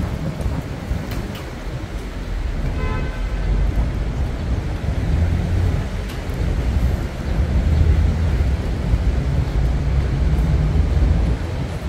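City street traffic: a steady low rumble of passing cars and buses, growing heavier in the second half, with a short pitched tone about three seconds in.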